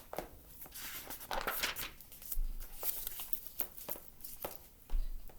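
Paper rustling and crinkling in several short swishes as storybook pages are handled and turned.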